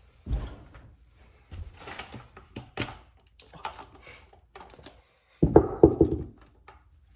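Knocks and metallic clatter of BMX parts being handled while a hub guard is fitted to a wheel: a thump at the start, scattered clicks, and the loudest burst of clanks a little past the middle.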